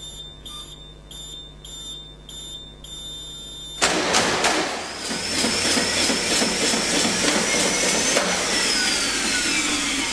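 Circuit breaker analyzer beeping a warning before the test: about six short beeps, then a longer one. About four seconds in, the circuit breaker operates through its open-close-open sequence with a sudden loud mechanical clunk. A motor then runs with a rising whine, and at about eight seconds it cuts out and winds down with a falling whine: the breaker's spring-charging motor recharging the closing spring after the operation.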